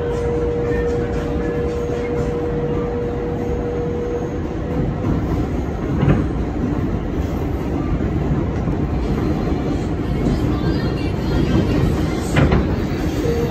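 New York City 4 train subway car running, heard from inside the car: a steady loud rumble of wheels on track, with a held whine that fades out about four seconds in and two sharp clacks, one about six seconds in and one near the end.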